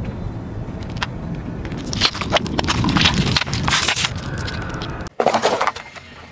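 Car tyre rolling over a row of plastic crayon-shaped toys on asphalt, crushing them with a run of sharp cracks and crackles from about two to four seconds in, over the low rumble of the tyre. A short crunch follows just after a cut, near the end.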